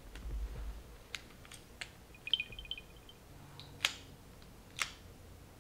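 White wireless earbuds handled in the fingers, giving small sharp plastic clicks, the two loudest in the second half. About two seconds in, the earbuds play a quick run of high chirping beeps at two pitches, the alert that someone is looking for them.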